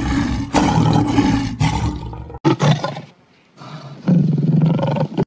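Lion roaring: a long roar, a brief break about three seconds in, then a second roar that cuts off suddenly near the end.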